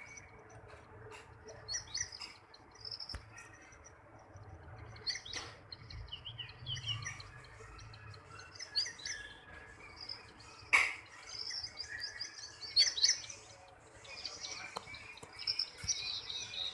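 Small birds chirping repeatedly, with a few sharp clicks or knocks, the loudest about eleven seconds in.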